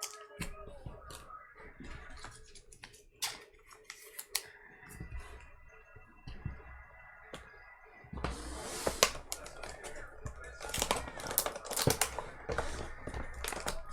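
Trading cards and their plastic and cardboard packaging being handled on a table: scattered light clicks and taps, with more steady rustling and crinkling from about eight seconds in.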